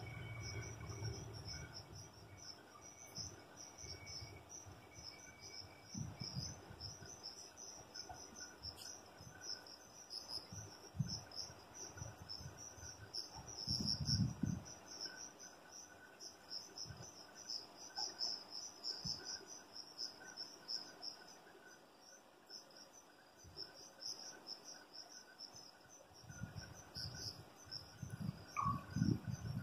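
Crickets chirping in a steady, high-pitched pulsing trill. A low rumble from the departing electric train fades in the first second, and scattered low thuds and rumbles come and go, the biggest near the middle and near the end.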